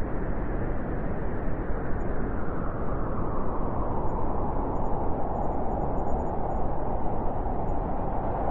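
Blizzard wind blowing in a steady rush, with a howling band in the middle range growing stronger over the second half.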